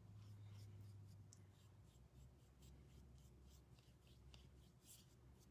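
Faint, irregular scratchy strokes of a small paintbrush touching up paint along the edge of a thin wooden piece, over a low hum that fades after the first couple of seconds.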